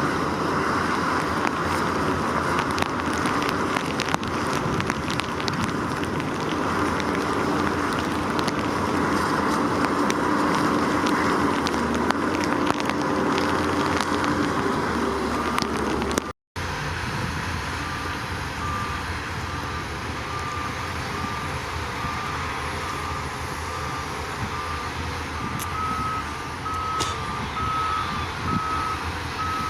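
Heavy construction machinery's diesel engine running steadily. After a sudden cut about halfway through, a reversing alarm beeps at a regular pace over the idling engine, the sign of the machine backing up.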